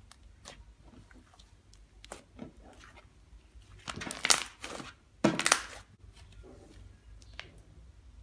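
Icing slime being squished and pressed by hand, making sizzly crackling pops and scattered small clicks, with two louder crunchy bursts about four and five seconds in.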